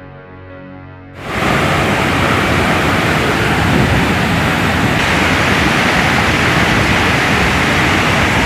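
Soft background music, then about a second in a loud, steady rush of a muddy flash-flood torrent surging down a river valley.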